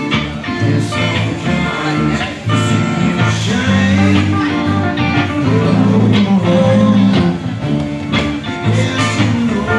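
Live rock band playing, with electric guitars at the front of the sound.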